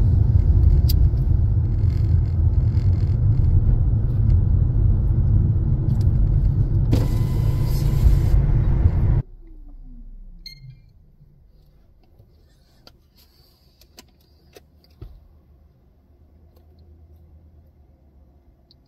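A loud, steady low rumble that cuts off suddenly about nine seconds in, followed by quiet with a short falling tone and a few faint clicks.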